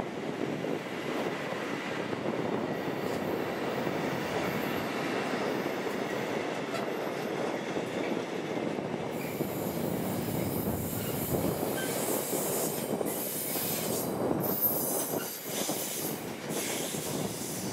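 Long container freight train rolling past: a steady rumble and rattle of wagon wheels on the rails, taking on a harsher, hissier edge from about halfway through.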